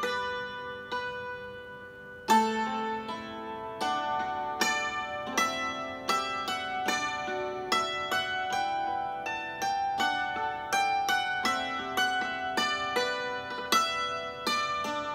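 Hammered dulcimer played with two wooden hammers: a melody of struck notes that ring on over one another. The notes ring out and fade for about two seconds, then the tune picks up again with a strong stroke and runs on at several notes a second.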